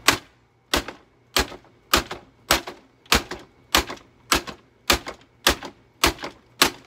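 About twelve sharp knocks struck at a steady pace, roughly one every 0.6 seconds, pounding on something solid that is being tested before demolition.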